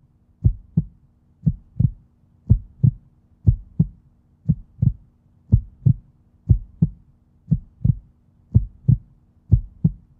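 Heartbeat sound effect: pairs of low thumps, lub-dub, about one beat a second.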